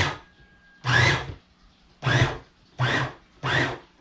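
Electric food processor run in short pulses: about four quick bursts, each a fraction of a second long, its motor whirring up in pitch at every press as it grinds raw chicken breast and onion.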